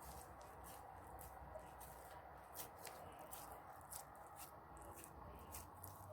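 Faint, irregular soft ticks and squishes of hands working sticky spiced kebab mince onto skewers, over a low steady hum.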